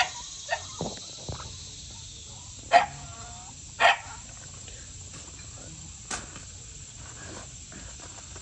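American Bully puppy barking twice, short and loud, about a second apart a few seconds in, the first bark trailing into a brief whine. A few light knocks near the start.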